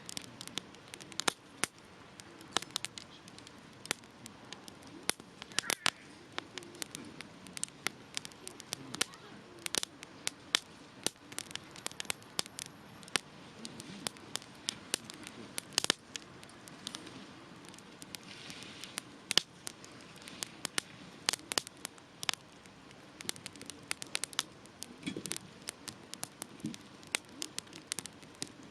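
Wood fire burning in a small fire pit, with frequent sharp, irregular pops and crackles over a soft steady hiss of flames.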